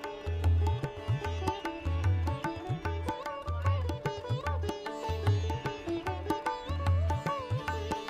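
Background music: a plucked-string melody with notes that bend in pitch, over a held drone and a steady low beat.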